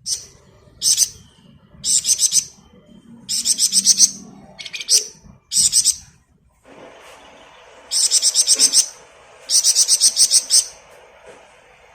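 Flamboyan songbird singing its 'ngebren' song: repeated bursts of rapid, high-pitched rattling trills, short ones in the first half and longer runs of about a second near the end.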